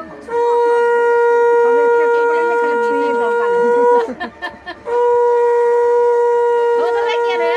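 A conch shell (shankha) blown in two long, steady blasts on a single held note, with a short break about four seconds in. It is the auspicious conch call of a Bengali Hindu rite.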